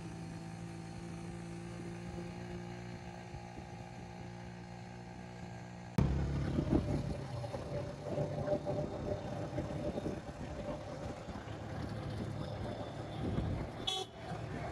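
Engine of a moving loader vehicle running steadily, heard from its open cargo bed. About six seconds in the sound changes abruptly to a louder, rougher mix of rattling, road and wind noise.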